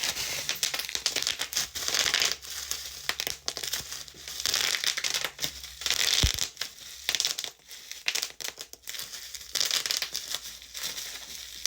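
Packaging around a new hair dryer brush crinkling and rustling in irregular bursts as it is unwrapped by hand, with scattered small clicks.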